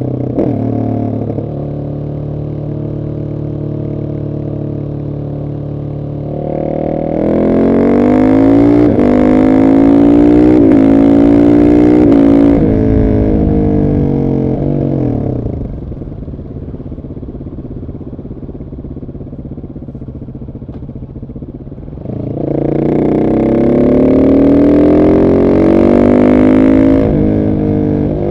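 Husqvarna 701 SM single-cylinder engine through a decat Arrow exhaust with the dB killer in. It cruises steadily at first, then is opened up hard twice, its pitch climbing, dropping back and climbing again several times as it pulls through the gears, with a quieter off-throttle stretch between the two runs.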